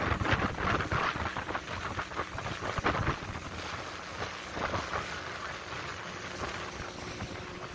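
Wind buffeting the microphone and choppy water splashing against the hull of a small aluminium fishing boat. Gusty and uneven for the first three seconds, then a steadier rush.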